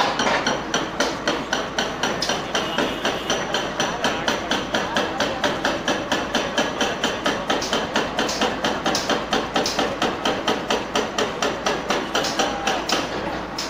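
Hydraulic breaker on an excavator arm hammering concrete, a rapid, even run of sharp metallic blows at about four a second that stops near the end.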